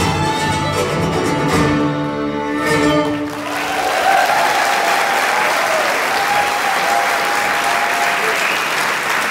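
A folk ensemble of many fiddles with guitars plays the end of a Scottish fiddle tune, closing on a held final chord about three seconds in. Audience applause follows at once.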